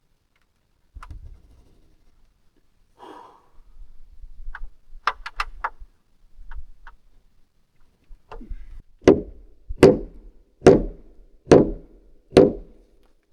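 A hammer striking wood: a few light taps and a quick run of clicks, then five loud, evenly spaced blows with a short ring, like a nail being driven into lumber.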